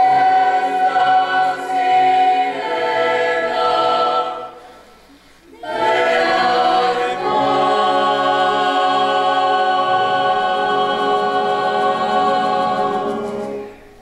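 A choir singing: a phrase of several notes, a brief break about five seconds in, then one long held chord that stops shortly before the end.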